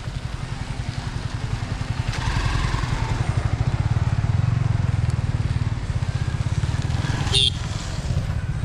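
Motorcycle engine running, a steady, fast-pulsing low rumble that grows louder about two seconds in. A short, sharp high sound cuts in briefly near the end.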